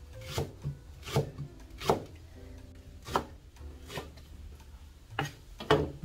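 Kitchen knife slicing a green onion (daepa) into rounds on a plastic cutting board: about seven separate cuts, each a short sharp stroke, roughly a second apart, two of them close together near the end.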